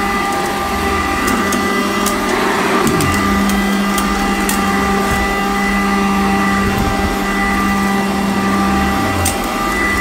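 Sanitaire commercial upright vacuum cleaner running steadily as it is pushed over carpet, a constant motor hum. The pitch dips briefly a couple of times, and there are scattered faint ticks.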